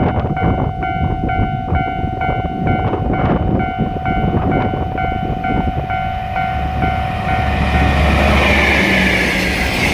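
Japanese level-crossing alarm ringing, a repeating ding about two and a half strikes a second over a steady tone, as a freight train hauled by a DF200 diesel-electric locomotive at full power approaches. A deep engine rumble sets in about six and a half seconds in, and the rush of the passing train builds near the end and drowns out the alarm.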